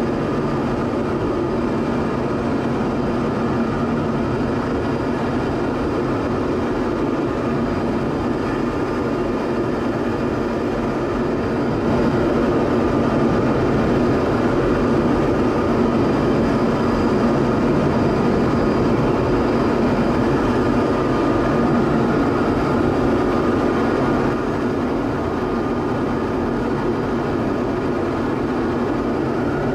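Steady engine and airflow noise of a Dassault Rafale heard inside the cockpit, a dense rush with faint steady whines over it. It gets a little louder about twelve seconds in and drops back about two-thirds of the way through.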